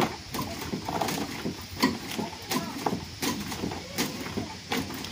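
Irregular knocks and clanks of metal being handled on a wrecked car, several a second, with no steady rhythm.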